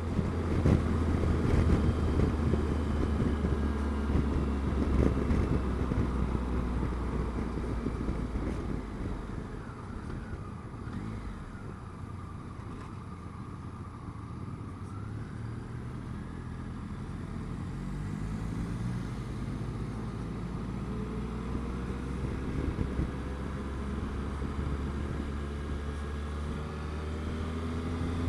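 Triumph Tiger Explorer's three-cylinder engine running on the move, heard through wind and road noise on a helmet camera. The engine eases off and the sound drops through the middle, then the engine note climbs steadily near the end as the bike accelerates away.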